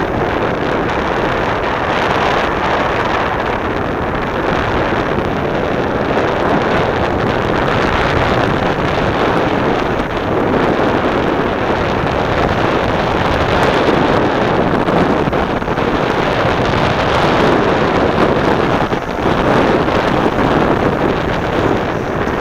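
Steady rush of wind buffeting a skier's camera microphone during a fast downhill run, mixed with the hiss and scrape of skis over packed snow.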